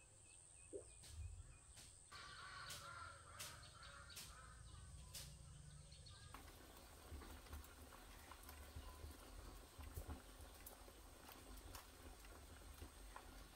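Near silence: faint outdoor ambience with a few faint animal calls and soft clicks. The background changes about six seconds in.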